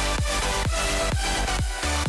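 Electronic dance music with a steady kick drum beating about twice a second under sustained synth tones.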